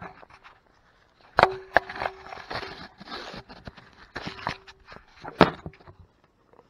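Knocks, clatter and rustling from the camera being handled and moved on its mount. The two loudest knocks, about a second and a half in and again near the end, each leave a brief ringing tone, and softer knocks and scuffs fall between them.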